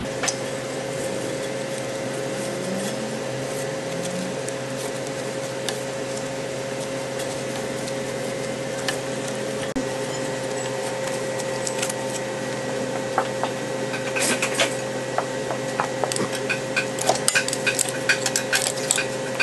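A steady hum with a constant tone throughout. From about two-thirds of the way in come irregular light clicks and knocks of gloved hands and metal parts as new belts are worked onto a golf cart engine's starter-generator and drive pulleys.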